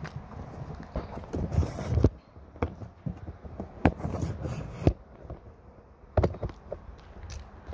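Handling noise from a camera being moved: rustling and knocks for about two seconds, then a few scattered sharp clicks and knocks.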